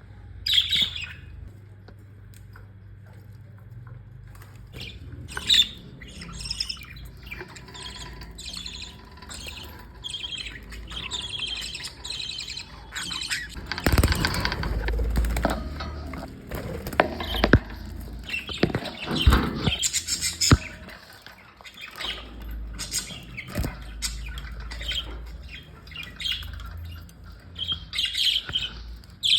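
A flock of pet budgerigars chirping and chattering in quick, overlapping short calls. Halfway through comes a stretch of low rumble, followed by a few sharp knocks.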